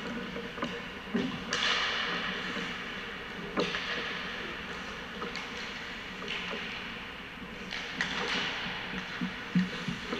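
Hockey skate blades scraping and carving across rink ice in repeated second-long hisses, with several sharp clacks of sticks striking pucks, the loudest near the end.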